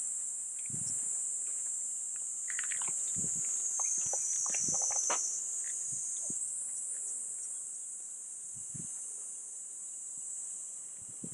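A steady, high-pitched drone of cicadas in summer, with a few faint knocks and rustles scattered through it.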